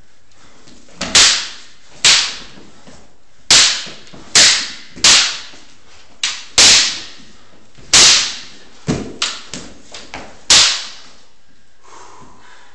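Wooden practice swords clacking together in sparring: about a dozen sharp strikes at uneven intervals, each with a short ringing echo off the room's walls. The strikes come singly for the first eight seconds, then several lighter, quicker ones follow in a cluster before a final hard strike.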